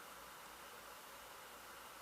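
Near silence: steady background hiss of the recording, with no distinct event.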